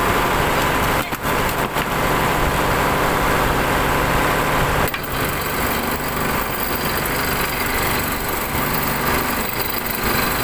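Engine on a fishing boat running steadily, a continuous loud drone.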